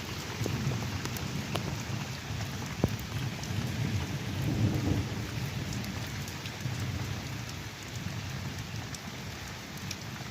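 Heavy storm rain pouring down steadily, with scattered sharp drip taps and a low rumble that swells about four to five seconds in.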